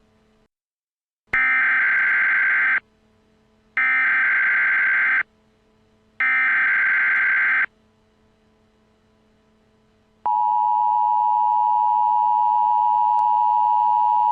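Emergency Alert System tones: three buzzy bursts of SAME header data, each about a second and a half long, which encode the alert. Near the end comes the steady two-tone EAS attention signal, which announces that an alert message follows.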